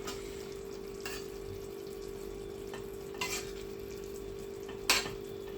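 A spatula knocks and scrapes against a pan a few times, loudest near the end, as pieces of hilsa fish are turned in gently cooking gravy. A steady hum runs underneath.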